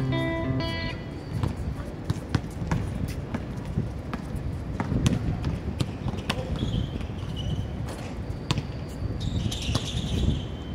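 A basketball bouncing on a hard court during a pickup game, with sharp bounces at irregular intervals and players moving and calling out around it. A strummed guitar tune stops in the first second.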